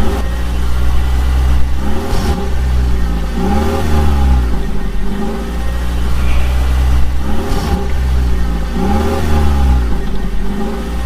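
Engine-like revving from a toy construction vehicle, rising and falling in pitch over and over, about every one and a half to two seconds, over a steady low hum.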